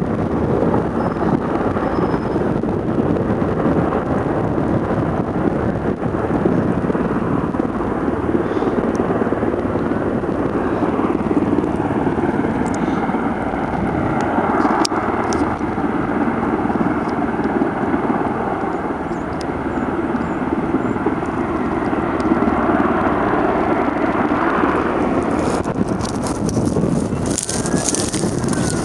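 Steady engine noise mixed with wind. Near the end a siren rises and falls, with scattered crackling.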